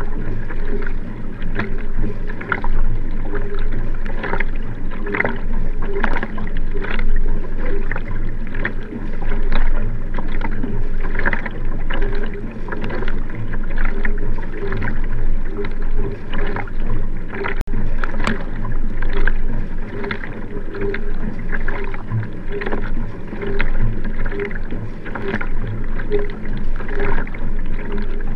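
Nelo Vanquish 3 sprint racing kayak under hard paddling, heard from its stern deck: a steady rhythm of wing-paddle strokes splashing in and out of the water, a bit more than one a second, over the continuous rush of water along the hull.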